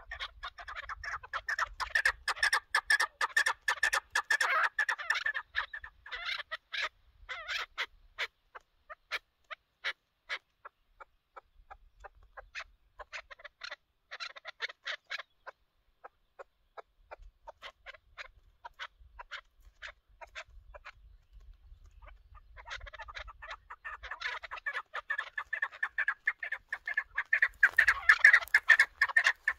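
Chukar partridges calling: a fast, dense run of clucking chuck notes, then scattered single notes, a pause of several seconds, and a second dense run building near the end. The caller in view is a caged decoy chukar calling to lure a wild one to the snares.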